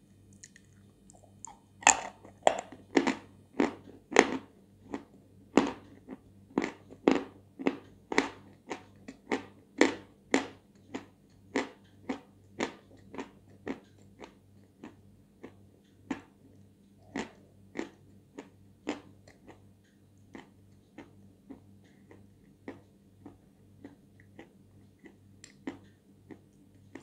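A person chewing a mouthful of dry edible chalk with a steady crunching, about two crunches a second. The crunches are loudest near the start and grow softer as the chalk breaks down.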